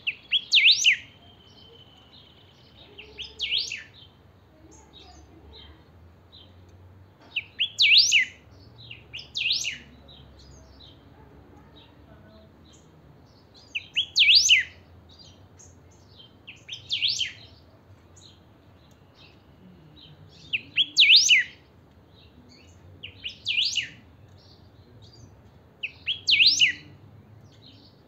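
Caged grayish saltator (picahueso) singing loud, short whistled phrases of quick falling notes, repeated every two to four seconds, often in pairs, with soft chips in between.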